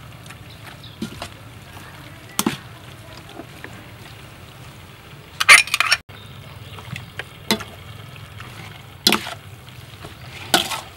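Metal spoon turning raw pork pieces with spices in a stainless steel bowl: wet squishing of the meat, with a few short clinks and scrapes of the spoon against the bowl, the loudest a quick cluster about five and a half seconds in.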